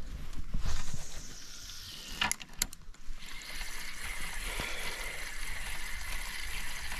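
Spinning reel on a fishing rod: two sharp clicks a little over two seconds in, then the handle cranked to retrieve the cast lure, a steady even whir from about three seconds on.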